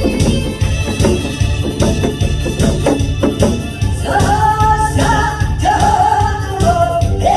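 Music with a steady beat, and a singer's voice coming in about four seconds in, holding long notes.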